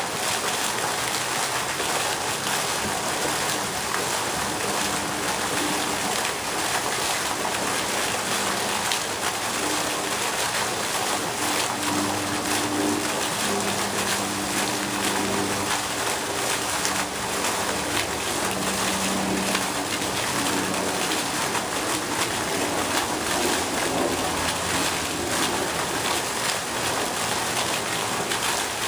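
Pond fountain jet splashing steadily back onto the water's surface. Partway through, a dove gives short, low cooing notes over it.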